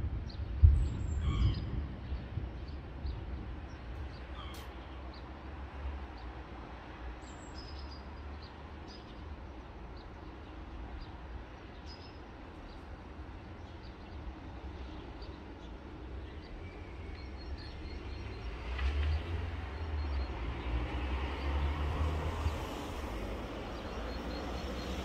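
Thunder: a sharp clap with low rumbling about a second in, the loudest sound here. Small birds chirp now and then over a steady low city hum, and a longer low rumble swells near the end.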